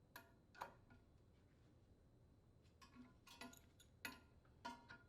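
Faint, irregular light clicks of a tool on metal as the set screw on the blower wheel's hub is tightened onto the motor shaft.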